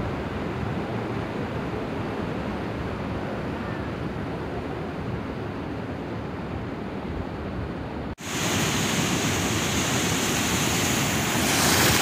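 Tall waterfall, a steady rush of water crashing onto rocks. About eight seconds in the sound cuts abruptly to surf washing over a sandy beach, louder and hissier.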